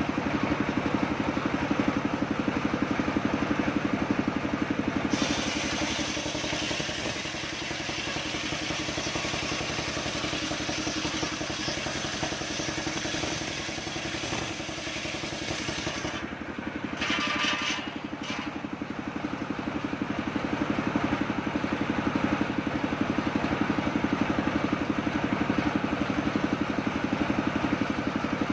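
Engine of a homemade circular sawmill running with a steady rhythmic chug while its large blade rips lengthwise through a coconut-palm log, adding a loud hissing rasp of cutting from a few seconds in until just past halfway. A brief high whine follows, then the engine runs on alone, louder.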